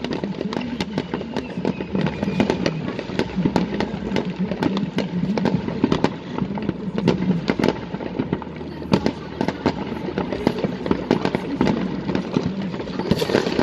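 Fireworks display: a dense run of sharp cracks and bangs, several a second, over a steady low rumble, with a louder burst near the end.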